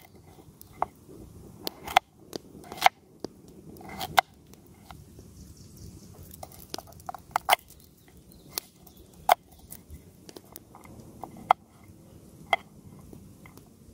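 A knife cutting raw potatoes held in the hand, with pieces dropping onto a small pan, beside a crackling wood campfire. Irregular sharp clicks and taps, one or two a second.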